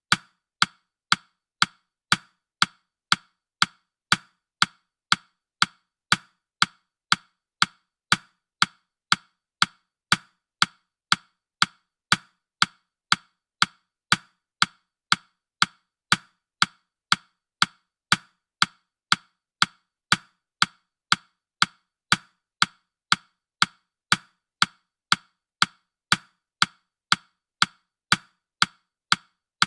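Countdown timer's clock-tick sound effect: an even, short woody tick repeating steadily at about two ticks a second.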